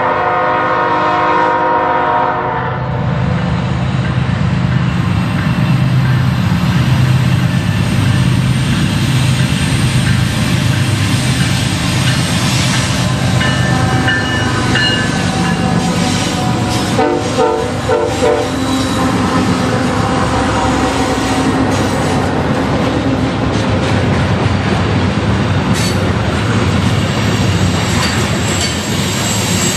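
Diesel freight locomotive air horn sounding for about two and a half seconds, then the locomotives pass with a deep diesel engine rumble. A long string of covered hopper cars follows, rolling by with wheel clatter and thin, intermittent wheel squeal.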